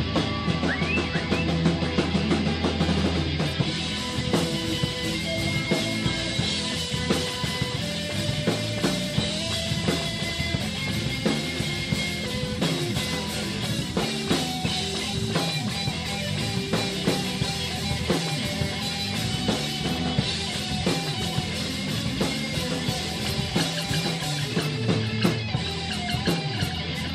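Rock band jamming, with a drum kit keeping a steady beat under guitar and held melodic notes.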